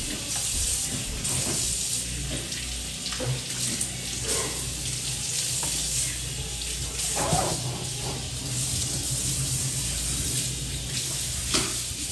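Kitchen faucet running into a stainless steel sink while dishes are washed by hand, a steady rush of water with a few light knocks of dishware.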